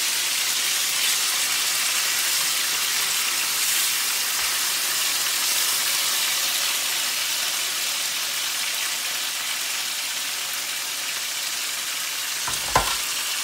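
Marinated pork loin steaks sizzling steadily in hot oil in a frying pan as the fat renders, with one sharp knock near the end.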